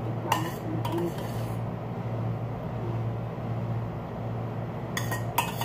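Metal ladle clinking against a stainless steel saucepan as sauce is scooped out and spooned over a plate. There are a few sharp clinks near the start and two more near the end, over a steady low hum.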